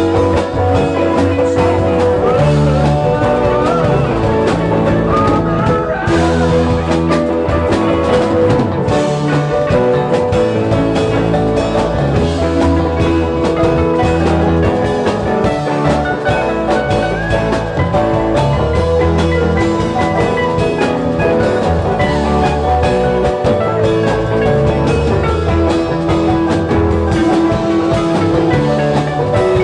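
Live rock band playing an instrumental passage with electric guitars, electric bass, drum kit and keyboards; a lead guitar bends notes in a few places.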